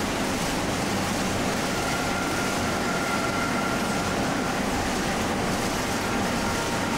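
Steady workshop machinery noise: a continuous mechanical rumble and hiss with a faint hum underneath and a faint high tone in the middle, without any clinks or knocks.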